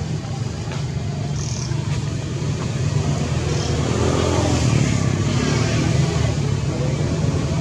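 A steady low engine rumble that grows a little louder about three seconds in, with a few short, faint high chirps over it.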